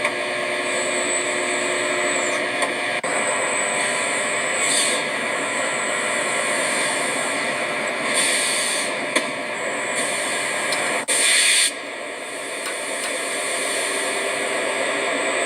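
Steady machinery noise of an aircraft factory floor, with a faint high whine and two short bursts of hissing air about eight and eleven seconds in.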